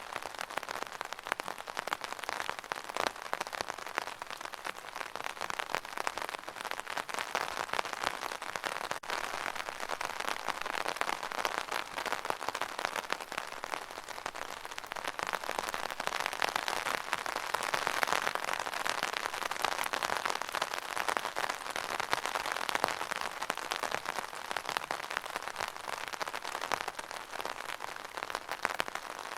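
Rain pattering steadily on an umbrella canopy, a dense run of fine drop ticks that swells slightly midway.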